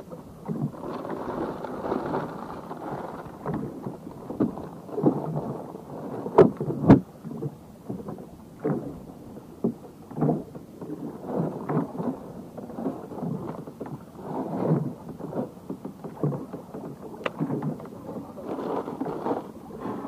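Waves slapping against the side of a small boat in irregular surges, every second or so. A few sharp knocks stand out, the loudest two about six and seven seconds in.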